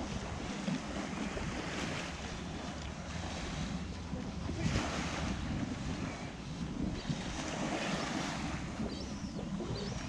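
Surf washing onto a sandy beach, swelling about three times, with wind rumbling on the microphone.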